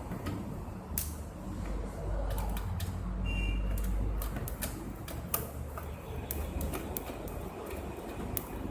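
Irregular small clicks and taps of hardware being handled, as a DVR case and hard drive are worked on, over a low steady hum.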